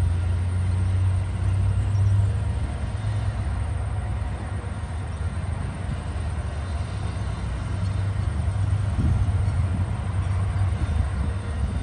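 TasRail TR-class diesel-electric locomotives' engines running with a steady low drone as the train pulls away, swelling slightly in the second half.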